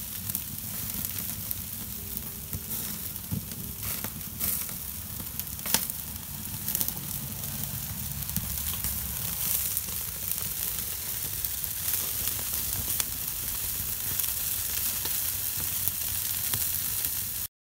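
Beef teriyaki skewers and chicken wings sizzling on a grill over a hickory and maple wood fire: a steady hiss with scattered sharp pops and crackles from the fire. It cuts off suddenly near the end.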